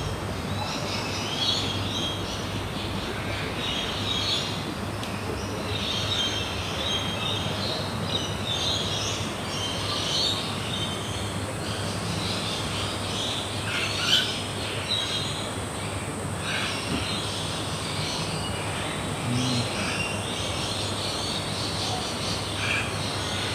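Garden ambience: many birds chirping and calling over a steady low hum, with one brief louder sound about fourteen seconds in.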